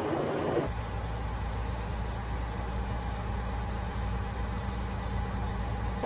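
Interior noise of a Freightliner Cascadia-based semi truck's cab. A rushing road-and-engine noise changes abruptly, less than a second in, to a steady low engine hum.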